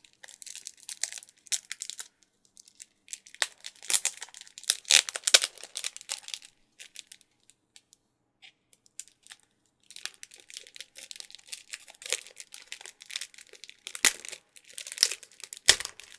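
Plastic wrapping and tape on a boxed Laserdisc set crinkling and tearing as they are cut and pulled open. The sound comes in crackly bunches, with a quieter spell of a few seconds midway.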